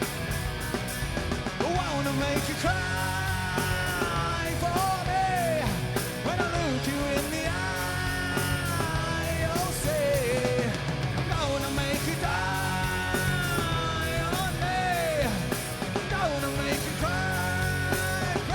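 Rock band playing live: the lead vocalist sings held, gliding lines over electric guitars, bass and drums.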